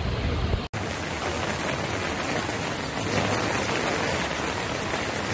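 Heavy rain falling, a steady even hiss, with a momentary dropout under a second in.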